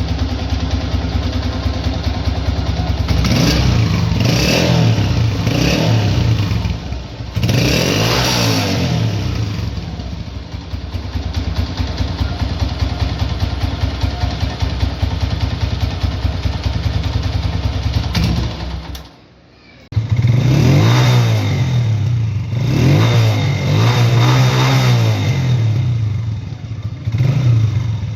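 A 2000 Honda CG 125's single-cylinder four-stroke engine running at idle and being revved again and again, its pitch rising and falling with each blip of the throttle. The sound briefly drops away about two-thirds of the way through.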